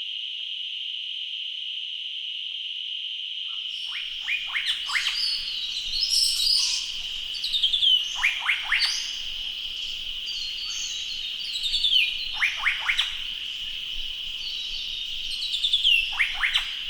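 Forest ambience: a steady, high insect drone, with birds calling over it from about four seconds in. The calls come as groups of three or four quick downward-sliding notes about every four seconds, with higher chattering between them.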